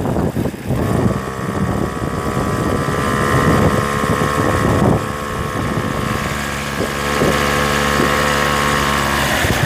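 Engine of a moving vehicle running steadily, a low hum with a higher whine above it. Wind rumbles on the microphone, and the engine's low note comes through more clearly in the second half.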